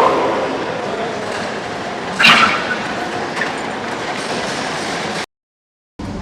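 Berlin city train running on the rails, a steady noisy rumble with a sharp, louder burst about two seconds in. The sound cuts out completely for under a second near the end.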